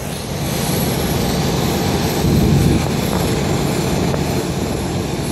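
Steady low rumble of an aircraft engine running, with wind buffeting the microphone.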